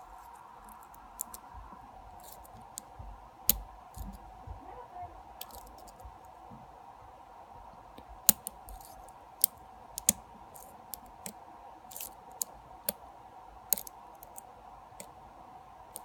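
Irregular sharp metallic clicks and ticks of a lock pick and tension wrench working the pins inside a challenge lock, over a faint steady hum.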